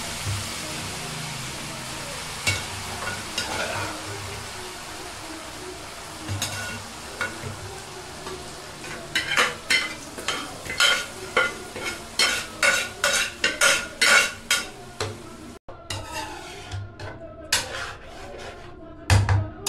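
Boiled daal being added to hot oil and spices in a kadai, frying with a steady sizzle. From about nine seconds in, a metal spoon clinks and scrapes against the pan in a quick run, two or three strokes a second.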